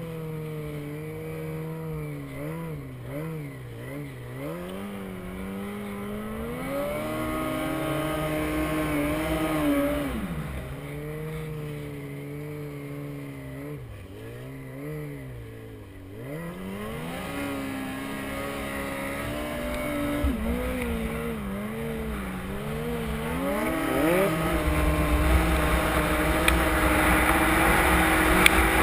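Yamaha Apex snowmobile's four-stroke four-cylinder engine, heard from the rider's seat, with the throttle blipped up and down again and again. It then revs up and holds high, getting louder near the end.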